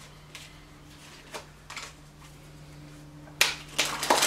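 A deck of playing cards being handled for a card trick: a few faint clicks, then a quick run of sharper card snaps and rustles near the end, over a low steady hum.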